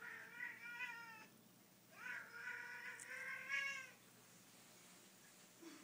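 Siamese cat meowing twice, two long, wavering meows, the second starting about two seconds in; angry, scolding calls at its owner, the kind she calls screaming.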